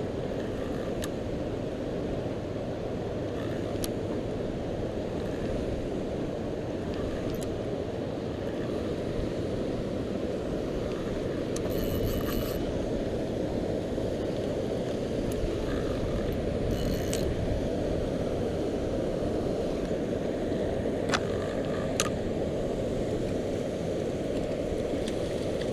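Steady rushing of water pouring through the dam, a dense low noise with no let-up. A few sharp clicks and ticks stand out now and then over it.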